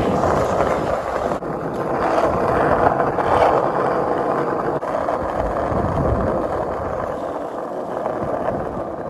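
Skate wheels rolling steadily over street pavement, a continuous grinding rumble, with wind buffeting the microphone.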